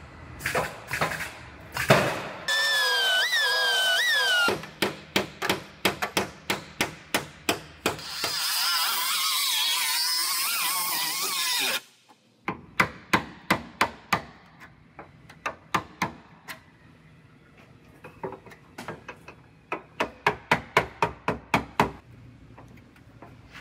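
Runs of sharp metal strikes on a car's sheet-metal rear body as the damaged panel is worked off, several blows a second. A power tool runs twice between them: a wavering whine for about two seconds early on, and a harsh hiss for about three seconds near the middle.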